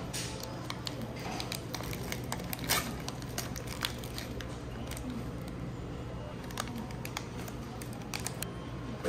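Steady low hum with scattered short clicks and crackles, the loudest a little under three seconds in.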